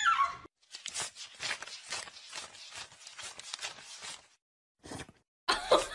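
A dog's pitched scream breaks off within the first half second. Then come about three and a half seconds of soft, irregular taps or clicks, a few a second.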